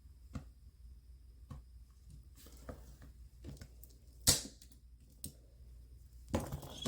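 Small clicks and taps from handling an iPod and its parts: quiet clicks about once a second, one sharper louder click about four seconds in, and a short rustle of handling near the end.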